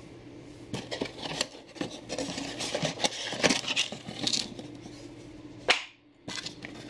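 Plastic zip-lock parts bags and a cardboard box being handled: irregular crinkling and rustling with scattered sharp taps, the loudest tap near the end.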